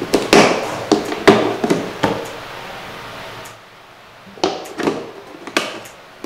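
Plastic storage-tub lid being lifted off and set back, giving a run of sharp plastic clacks and knocks, with a quieter lull a little past halfway.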